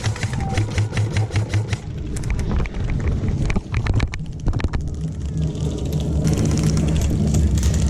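Rapid trains of sharp cracks from airsoft rifles firing, heaviest in the first two seconds and again midway, over a steady low rumble.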